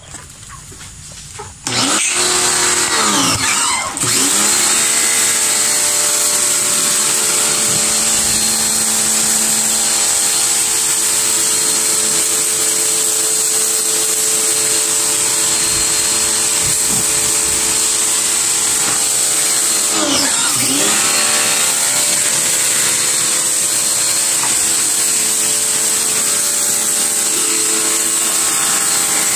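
Pressure washer starting up about two seconds in and running steadily, its motor's hum under the hiss of water spraying onto a concrete floor. Twice, near the start and about two-thirds through, the motor's pitch dips and comes back up.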